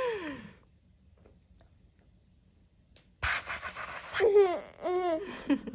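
Six-month-old baby laughing: a breathy burst of giggling squeals that starts suddenly about three seconds in, after a brief falling voice sound at the start.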